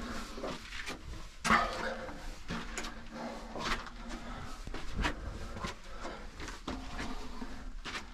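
A person climbing a steep, narrow brick stairway: irregular footsteps, scuffs and knocks on the steps, with breathing from the climb.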